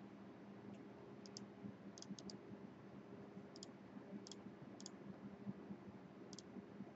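Faint computer mouse clicks, about ten scattered over several seconds, several in quick pairs, over a low steady hum.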